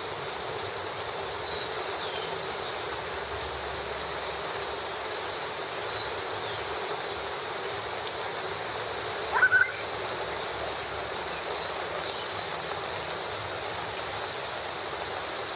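Steady rain falling, an even hiss. A short high chirp stands out about nine seconds in.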